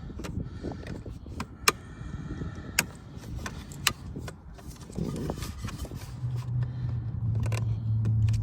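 Sharp plastic clicks and taps from a car door's interior trim being pried and knocked loose. A low steady hum comes in about six seconds in.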